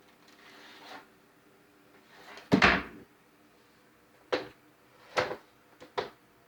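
Loud, irregular tapping and knocking from the condo upstairs. A heavy double thud comes about two and a half seconds in, followed by four sharper knocks spaced unevenly over the next two seconds.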